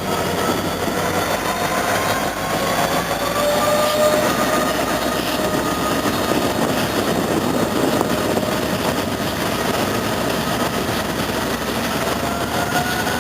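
A train rolling past: a steady rumble of the cars with a thin whine that drifts slowly up and down in pitch.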